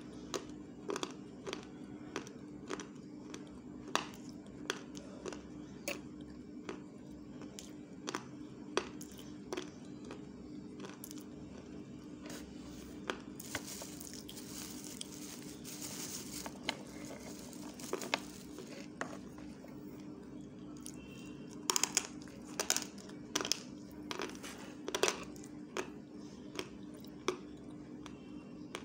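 Close-miked mouth sounds: irregular wet clicks and smacks of lips and tongue, over a steady low hum. A hiss runs for a few seconds about halfway through.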